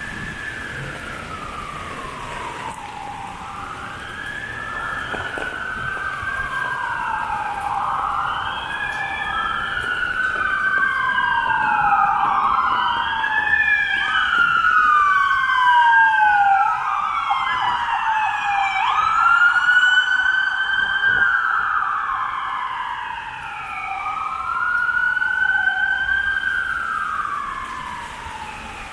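Emergency-vehicle sirens wailing, at least two overlapping, each sweeping up and down in pitch. They grow louder toward the middle and fade near the end.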